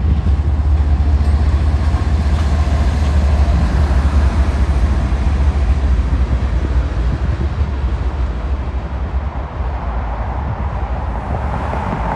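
Two BNSF diesel-electric freight locomotives, a GE ES44C4 leading a GE Dash 9-44CW, passing close with a loud, steady deep engine rumble, followed by loaded ballast hopper cars rolling by on the rails. The rumble eases slightly in the second half as the train moves off.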